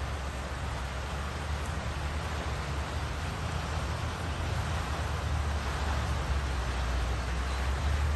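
Steady rush of river water with a low rumble of wind on the microphone, slowly growing louder.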